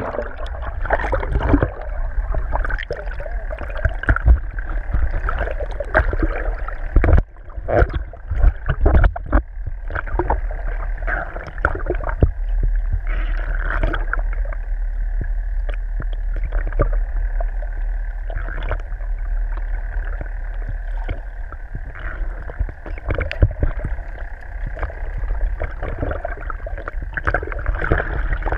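Muffled underwater sound picked up by a camera in its waterproof housing: a steady low rumble of moving water with irregular knocks and clicks, heaviest a few seconds in, over a faint steady hum.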